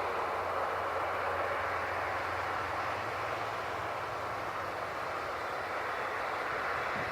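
Steady rushing noise of airliner engines at an airport, even and unchanging.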